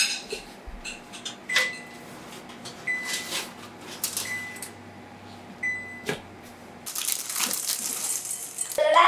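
Metal baking sheets and oven racks clicking and clanking as the trays of macaron shells are slid out of the oven. About seven seconds in, white chocolate pieces pour into a glass bowl with a dense, bright clatter that lasts nearly two seconds.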